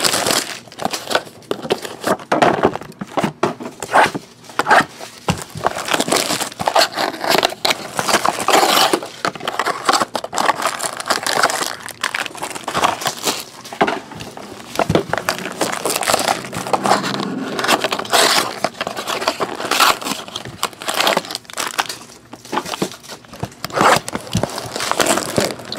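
Plastic shrink wrap and foil trading-card pack wrappers crinkling and tearing as card boxes are unwrapped by hand, a continuous run of irregular crackles.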